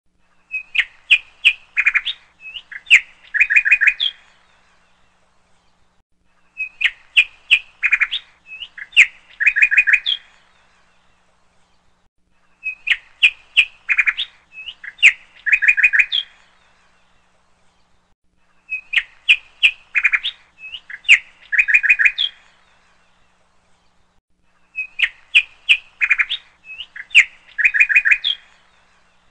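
Bird chirping: a quick phrase of high chirps and trills about three and a half seconds long, repeated five times, identical each time, every six seconds, with quiet gaps between. This is a looped recording.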